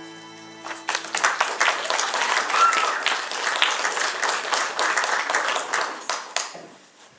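The last held chord of backing music fades out, then an audience claps for about five seconds, dying away near the end.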